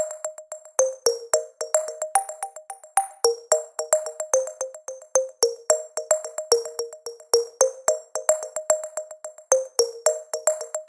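Background music: a light electronic tune of short, bright notes over a quick clicking beat.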